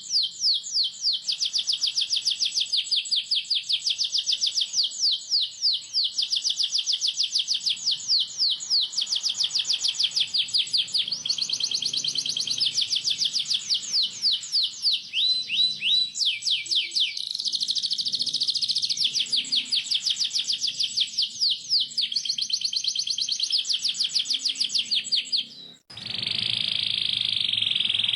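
Domestic canary singing a long rolling song: rapid falling chirps repeated several times a second, shifting between phrases. Near the end it breaks off for a moment and resumes as a denser buzzing trill.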